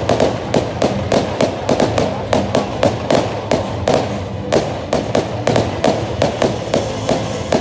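Fireworks display going off: a rapid, unbroken string of sharp bangs and crackles, about three or four a second.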